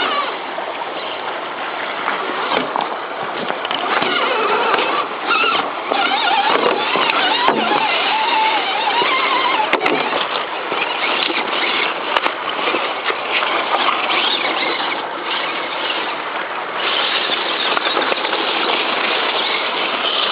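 Creek water rushing over rocks, with the wavering whine of a 1/10-scale Axial SCX10 RC crawler's electric motor and gears rising and falling with the throttle, clearest about a third of the way in.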